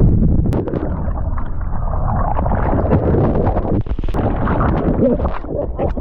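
Sea water churning and splashing around a surfer's POV camera, with a heavy low rumble of water and wind on the microphone.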